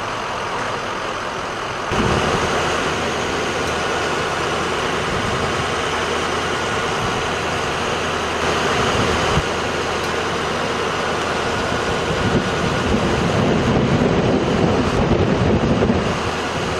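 Fire engines' diesel engines running steadily on scene, a constant mechanical noise that gets louder about two seconds in.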